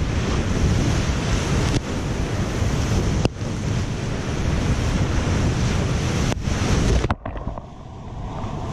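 Whitewater rapids rushing and crashing around kayaks running through big breaking waves, heard close to the water. About seven seconds in the sound turns suddenly muffled as a wave washes over the camera.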